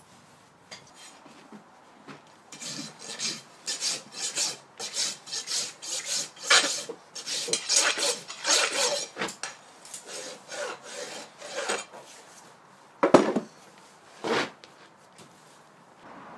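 Farrier's rasp filing a horse's hoof wall over a newly fitted shoe: a run of rasping strokes, about two a second. Two sharp knocks follow near the end.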